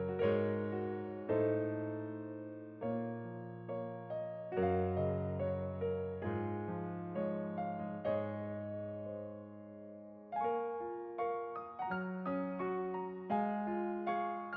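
Solo piano background music: slow chords and single notes struck and left to ring out.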